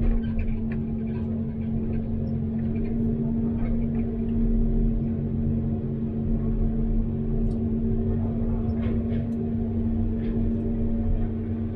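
Caterpillar 329D excavator's diesel engine and hydraulics running at a steady speed: a constant droning hum with one strong steady tone over a low rumble, and scattered faint ticks and clicks.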